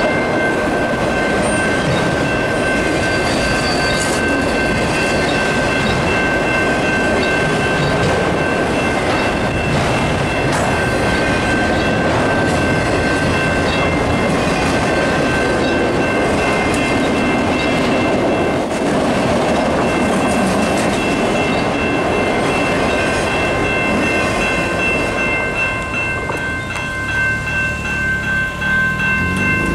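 Freight train of autorack cars rolling steadily past a level crossing, with wheels clattering on the rails. The level-crossing bell rings the whole time. The train noise eases off about 26 seconds in as the last cars clear, leaving the bell.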